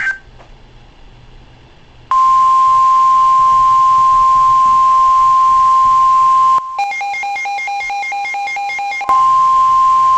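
Weather radio emergency alert: after a brief hush, a loud steady single-pitch warning tone sounds. About two-thirds through, it is broken for a couple of seconds by rapid electronic beeping that alternates between a low and a high pitch, then the steady tone resumes. The alert precedes a severe thunderstorm warning.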